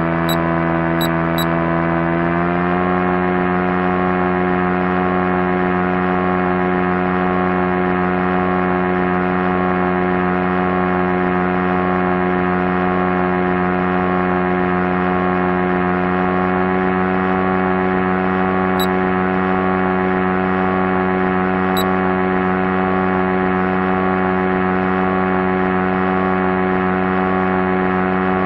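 Steady drone of an airplane engine at constant power, one unwavering pitched hum whose pitch steps up slightly about two and a half seconds in. A few faint, sharp clicks sound near the start and twice later.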